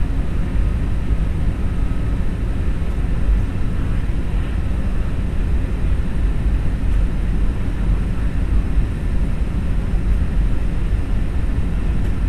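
Steady, low rumble of airliner cabin noise: jet engines and rushing airflow heard from inside an AirAsia Airbus A320 during its approach.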